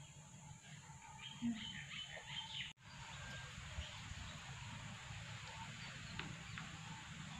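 Birds chirping over steady outdoor background noise, with a brief soft knock about a second and a half in. The sound drops out for an instant a little before three seconds.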